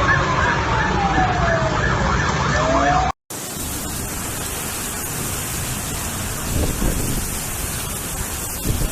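Emergency vehicle siren wailing, its pitch sliding down and then starting to rise again, over traffic noise; it cuts off about three seconds in and gives way to a steady rushing hiss.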